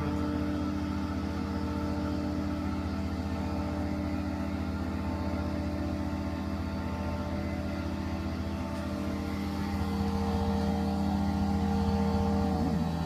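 Homemade Proxxon-based CNC mill running a cutter through plywood: a steady motor hum made of several held tones. It grows a little louder about ten seconds in, and one tone drops in pitch near the end.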